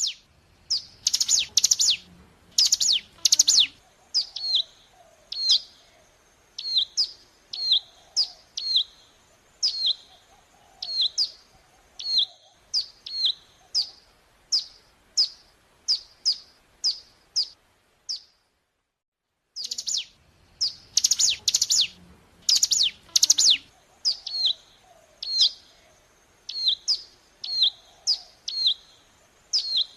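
Ciblek gunung (a prinia) song played as a lure recording. A few loud, long high notes are followed by a long run of sharp, down-slurred chirps, about one every 0.7 seconds. After a short dead-silent gap about two-thirds of the way through, the same sequence starts again, as a loop.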